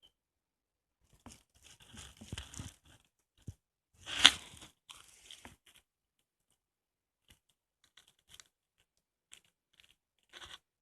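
Irregular rustling and crunching with scattered small clicks. One sharp, louder click comes about four seconds in.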